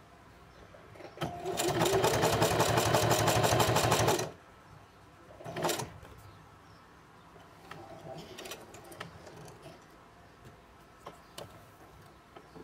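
Singer Heavy Duty 4432 sewing machine stitching through a leather strap in one run of about three seconds, with a fast, even stitch rhythm that starts and stops abruptly. About a second and a half after it stops there is a single short clack.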